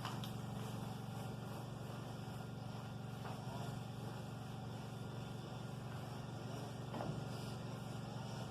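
Steady low motor drone, with a few faint knocks.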